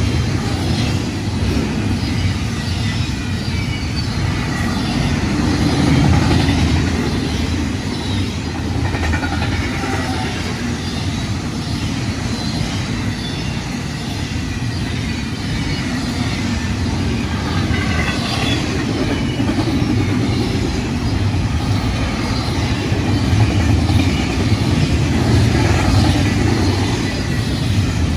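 Freight train cars rolling past, a steady rumble of steel wheels on rail.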